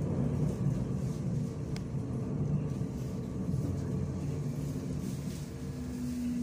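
Hamburg DT4 U-Bahn train heard from inside the car, running into a station with a steady low rumble of wheels and running gear. Near the end a steady low hum joins in as the train slows toward a stop.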